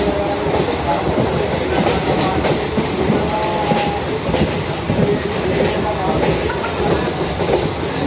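Passenger train running at speed, heard from on board: a steady noise of wheels on the rails with clatter from the track.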